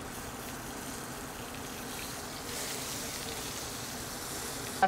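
Chicken breast searing in butter in a hot skillet: a steady sizzle that gets a little brighter about halfway through.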